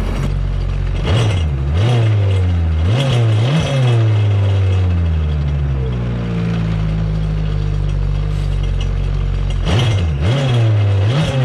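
2007 Kawasaki Ultra 250X jet ski's supercharged four-stroke engine running out of the water, revved in short blips, then idling steadily for several seconds, then blipped again near the end. The revving drives antifreeze through the cooling system and out the exhaust during a winterizing flush.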